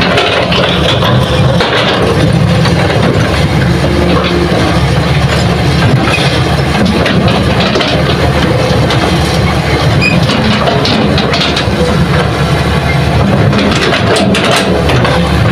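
Hitachi hydraulic excavator's diesel engine running steadily under load while the bucket digs into hard, stony ground, with frequent clatter and knocks of soil and rock. The clatter is densest near the end.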